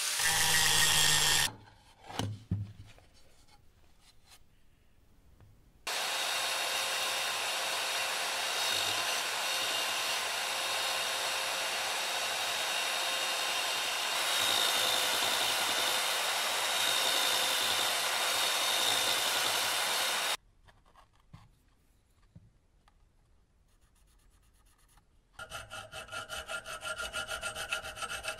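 An angle grinder cuts steel and stops about a second and a half in. After a pause, a Bosch PBS 75 A belt sander runs steadily for about fifteen seconds, sanding the edge of a plywood disc. Near the end comes a quick, even back-and-forth rubbing as abrasive is run over a metal bar.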